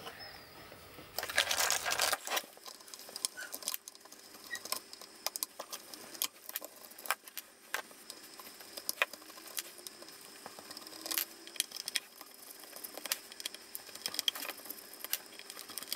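Small metal screws being undone with a hand screwdriver from a connector strip: scattered sharp metallic clicks and ticks as the screwdriver and loose screws knock about, with a louder scraping rustle about a second in.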